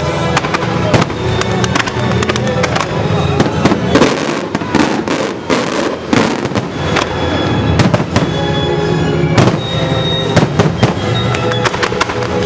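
Fireworks bursting and crackling in quick succession over loud music, as in a pyromusical display; the bangs come thickest a third to halfway through.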